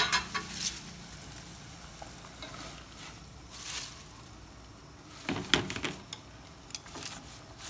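A pot of salted water boiling on a gas burner, with a few bursts of leafy rustling as handfuls of sweet potato leaves are pushed into it to blanch.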